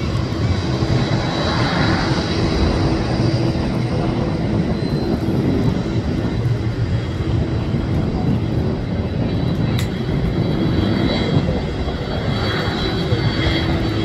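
Boeing 767-300ER freighter's twin turbofan jet engines at takeoff thrust during the takeoff roll: a steady, loud rumbling roar with a thin high whine.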